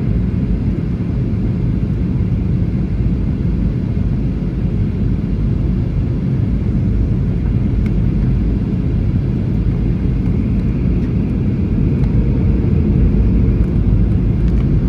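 Airliner cabin noise in flight: a steady low rumble of jet engines and airflow heard from inside the cabin, growing a little louder near the end.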